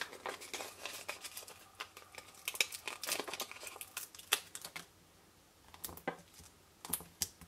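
Paper and cardstock handled by hand on a craft mat: crinkling with many small sharp crackles and ticks, dropping off about five seconds in, with a few more ticks near the end.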